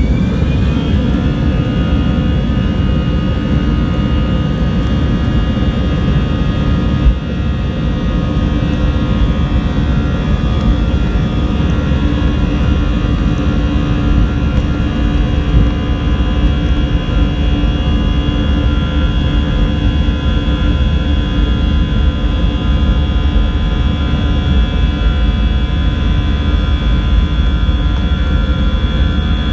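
Jet airliner engines heard from inside the cabin: a whine climbs in pitch and levels off about a second in as the engines spool up, then they run loud and steady with a dense rush and several high whining tones. A single brief thump about seven seconds in.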